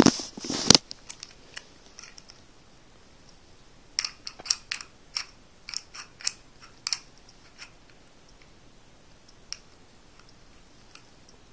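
Metal clicks and rattles of a Master Lock 1500 combination padlock being worked by hand, its shackle jammed and not opening. A loud burst of rattling at the start, then a quick run of sharp clicks a few seconds in and a few more near the end.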